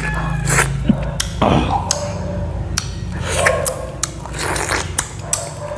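A person eating pineapple close to the microphone: chewing and biting with wet smacking mouth sounds and sharp clicks, over a steady low hum.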